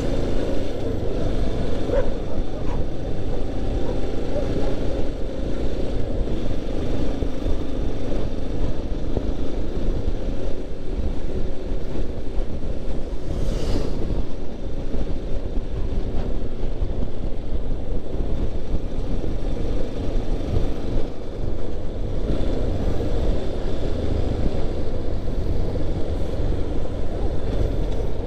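Yamaha Ténéré 250's single-cylinder engine running steadily under the rider as the motorcycle cruises in traffic, with road and wind noise on the microphone. A short hiss cuts in about halfway through.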